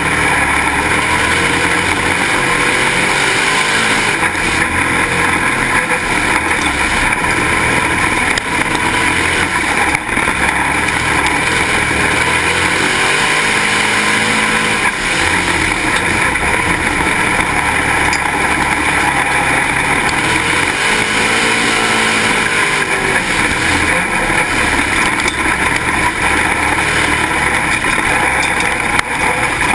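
Onboard sound of a dirt-track Pro Stock race car at speed: its engine runs hard and loud, the note rising and falling several times as the car accelerates and lifts through the laps, mixed with wind noise on the car-mounted camera.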